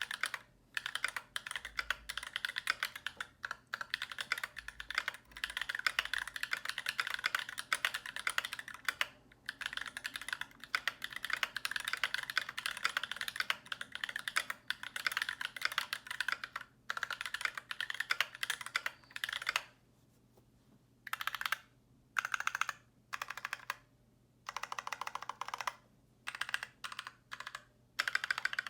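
Typing on a KBD75 mechanical keyboard with an aluminum plate and stock, unlubricated Holy Panda tactile switches: a fast, continuous run of keystrokes, broken by a few short pauses in the last third.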